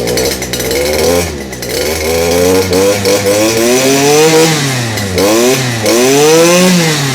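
Stihl FS 250 brush cutter's two-stroke engine is revved up and down several times, its pitch climbing and falling with the throttle. It is being tuned while it runs very lean.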